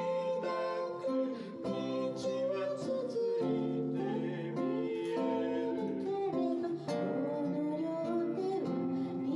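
A man singing with his own acoustic guitar accompaniment, a live vocal-and-guitar performance.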